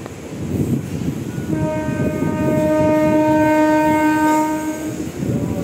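Train horn sounding one long steady note for about three and a half seconds, starting about a second and a half in, over the rumble and rattle of the moving train heard from on board.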